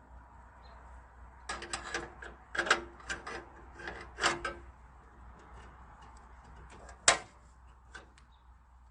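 Hand tools working on a stuck bolt: several short runs of metallic clicks and knocks, a few ringing faintly, then one sharp loud click about seven seconds in.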